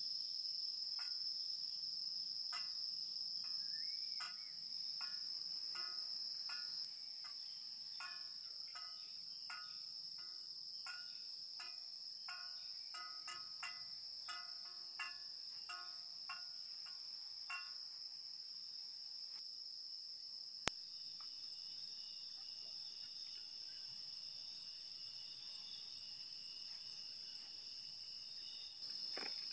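Steady high-pitched chirring of crickets. Over it, through the first half or so, a faint run of short pitched notes, roughly two a second, sounding like gamelan. One sharp click about two-thirds of the way through.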